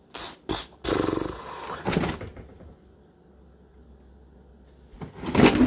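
Kitchen cupboards and drawers being opened and rummaged through: a few quick knocks, then a longer stretch of rattling and scraping, a short lull, and another loud bang and clatter near the end.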